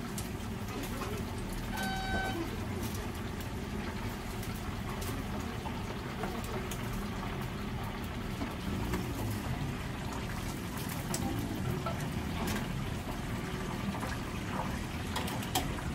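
Whole chickens deep-frying in a commercial fryer: steady sizzling and bubbling of the hot oil. There is a short electronic beep about two seconds in, and a few light metallic clicks of tongs later on.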